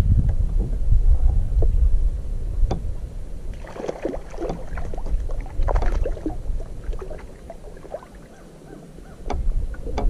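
Gusty wind buffeting the microphone. A bit over three seconds in, a few seconds of knocks, clunks and rattles follow: fishing gear being handled and set down in an aluminum boat.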